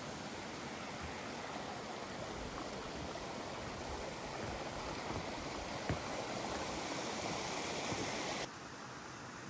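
Steady rush of a cascading mountain stream at a small waterfall, slowly getting louder, with one sharp knock about six seconds in. It drops suddenly quieter near the end.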